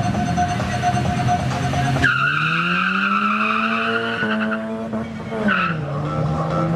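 Race car accelerating hard with its tyres squealing: the engine note climbs for about two seconds and then falls away near the end.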